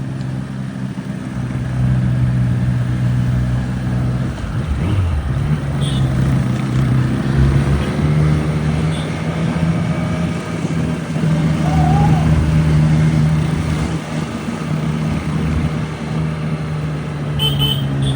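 Triumph Street Triple RS's 765 cc three-cylinder engine running, its pitch dropping briefly about four seconds in before holding steady again.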